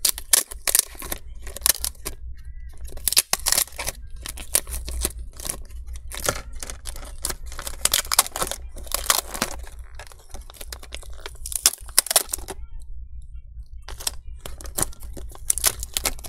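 Black adhesive film being peeled off a laptop motherboard, tearing and crinkling in irregular bursts with short pauses.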